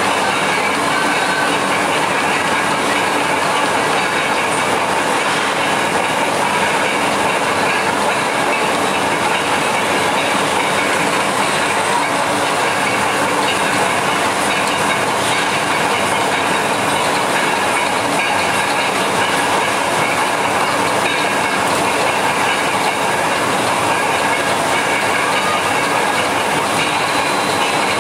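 Loud, steady mechanical running noise with a rattling clatter, unbroken throughout.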